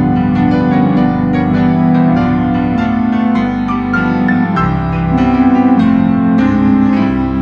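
Organ and piano playing a Christmas piece together: sustained organ chords with the piano's struck notes over them.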